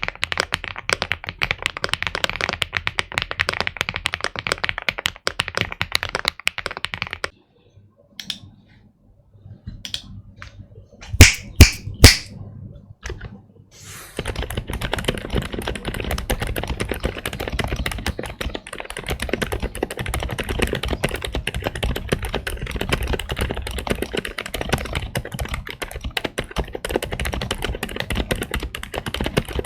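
Fast, continuous typing on an Aula F108 Pro mechanical keyboard, a rapid run of key clicks that breaks off about seven seconds in. After a lull with a few scattered clicks, there are three very loud sharp knocks at around eleven to twelve seconds, and steady typing resumes at about fourteen seconds.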